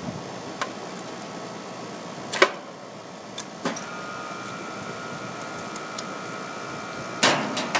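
Needle-nose pliers gripping and pulling wire spade connectors off the metal terminals of an AC contactor: a few separate sharp clicks and snaps, the loudest about a third of the way in and a quick cluster near the end. Under them is a steady background hum, and a faint steady whine joins about halfway through.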